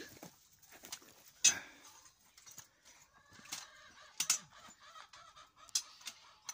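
Chickens clucking in short, separate calls, the loudest about one and a half seconds in, with a few sharp clicks between them.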